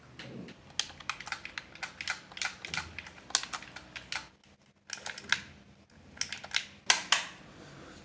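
A run of irregular sharp clicks and taps, several a second, with a short pause about four seconds in.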